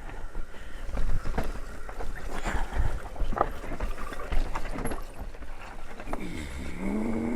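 Mountain bike descending a dirt trail: tyres running over the ground with frequent knocks and rattles from the bike over bumps.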